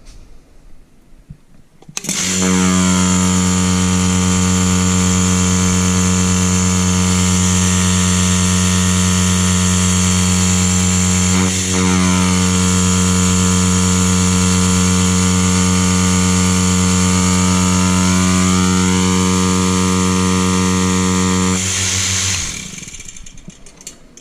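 Electric rotary vane vacuum pump of a Burenka VN-3000 milking machine, fitted with new vanes, running under power. It is switched on about two seconds in and gives a loud, steady hum, falters for a moment near the middle, then is switched off near the end and winds down.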